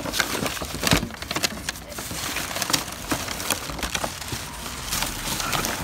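Plastic bags crinkling and rustling as items are rummaged through in a cardboard box, with many small crackles and knocks.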